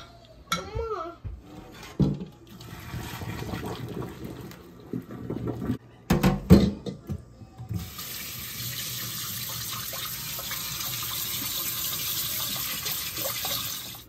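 Tap water running steadily into an aluminium pressure cooker standing in a stainless steel sink, starting about eight seconds in, to cool the boiled eggs inside. Before that, metal knocks and clatter as the cooker's whistle weight and lid are taken off.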